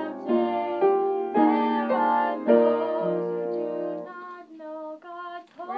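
Piano music with a female voice singing held notes; about four seconds in the piano drops out and the voice carries on alone, quieter.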